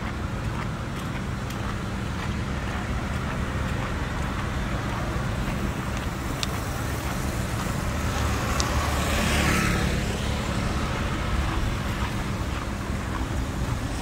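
Street traffic noise with a steady low rumble. A motor scooter passes about eight to ten seconds in and briefly makes it louder.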